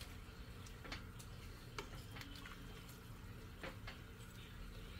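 A pot of soup with vegetables simmering quietly: faint bubbling with a few soft pops, over a steady low hum.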